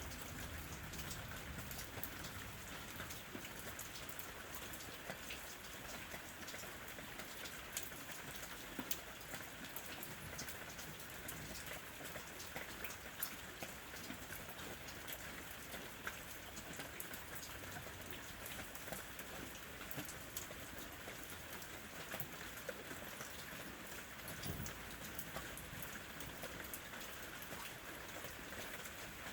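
Steady rain falling, a continuous hiss with many distinct drops ticking on a surface.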